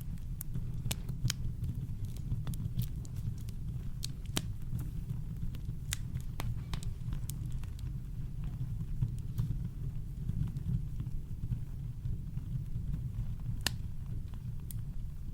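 Campfire crackling: irregular sharp pops and snaps, a few louder ones such as near the end, over a steady deep rumble of brown noise.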